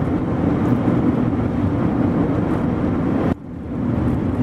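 Car cabin noise while driving: a steady low engine and road rumble. About three seconds in it cuts down sharply and then swells back up over a second or so.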